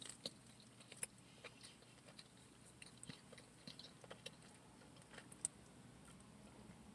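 Faint chewing of a soft pancake-and-sausage sandwich: small, scattered mouth clicks and smacks, barely above near silence.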